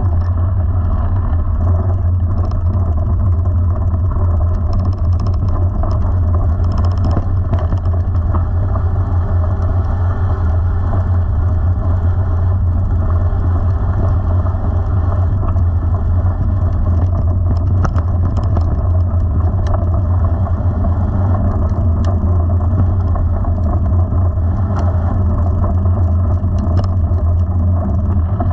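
Steady rumble of a mountain bike rolling over a gravel road, mixed with wind on the camera microphone, with a few small clicks and rattles from the gravel and the bike.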